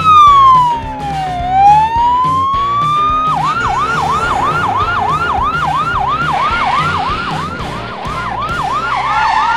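Ambulance siren: a slow wail rising and falling, which switches about three seconds in to a fast yelp of about three sweeps a second.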